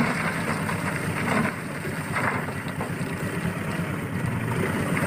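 Isuzu ELF dump truck's diesel engine running steadily while the bed is tipped up, with wind buffeting the microphone.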